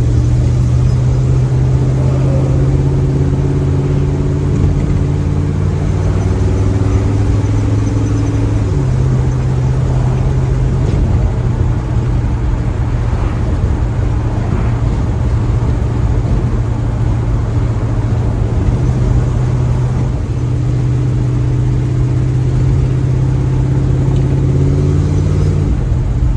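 A 1936 Chevy coupe hot rod's engine and newly fitted exhaust cruising, heard from inside the car over road rumble. The engine note steps down about nine seconds in, then holds steady, and climbs again after about twenty seconds.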